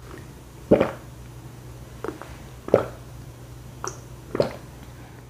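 Gulping from a mug: three loud swallows about two seconds apart, each with a fainter sound just before it.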